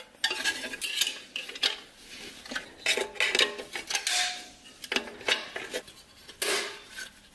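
Beveled snap ring being worked into its groove above the center support inside a 4L80E transmission case: irregular metallic clinks, taps and scrapes as it is pushed and pried into place with a screwdriver, with a brief ringing clink about four seconds in.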